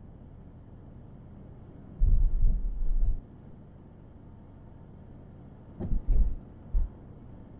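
Car on the move: a steady low hum of road noise, broken twice by clusters of heavy low thumps and rumble, each lasting about a second.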